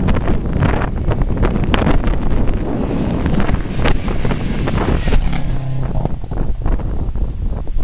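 Rally car passing close at speed on a wet, flooded road, its engine and tyre spray heard under heavy wind buffeting on the microphone.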